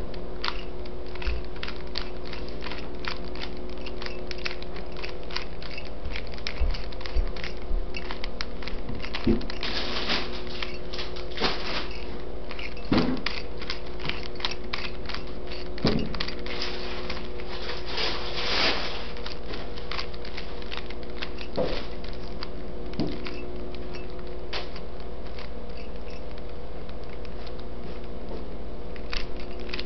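A 3x3 Rubik's Cube being turned quickly by hand: a fast, irregular run of plastic clicks and rattles as its layers are twisted, over a steady low hum.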